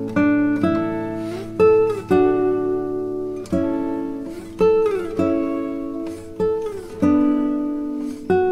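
Background music: a slow plucked guitar melody, each note struck and left to ring out, with a few sliding notes.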